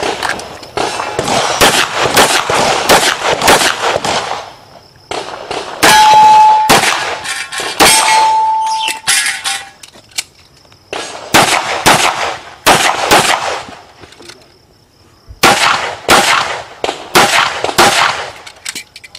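Rapid handgun fire in quick clusters of shots with short pauses between. Steel targets ring with a clear tone after hits about six and eight seconds in.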